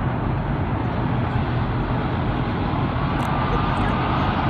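Steady engine rumble, with a faint whine rising in pitch from about three seconds in.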